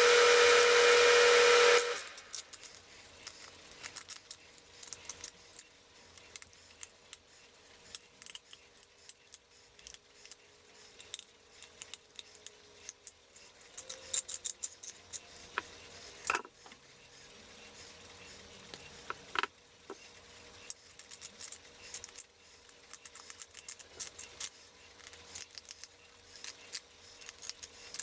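A loud steady whooshing hiss with a hum cuts off about two seconds in. After that come small clicks, light taps and scrapes of hand tools and paper on clock parts, with a couple of sharper ticks.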